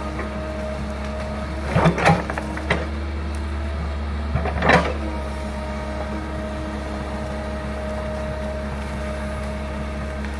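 Hydraulic excavator's diesel engine running steadily under load. Two short bursts of scraping and crackling, about two seconds in and again near the middle, come as the bucket digs at and tears the bamboo root clump.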